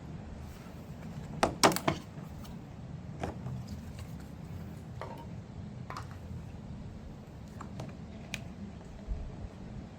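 Sharp plastic clicks and knocks from a 3D-printed bracket clip being worked on the rim of a poly stock tank, with the loudest pair of snaps about a second and a half in and scattered softer clicks after, over a steady low hum.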